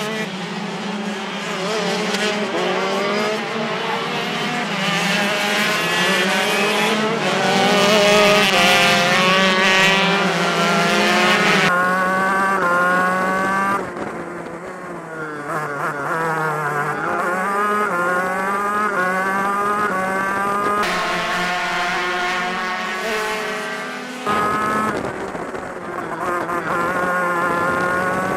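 Two-stroke shifter kart engine racing, its pitch climbing and dropping over and over as it revs up through the gears and backs off for corners. The sound changes abruptly about twelve seconds in and again near the end of the third quarter.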